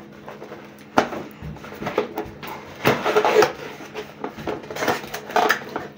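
Cardboard box of a fretwork kit being opened by hand: the lid scraping as it slides and a few light knocks as the plywood and tools inside are handled.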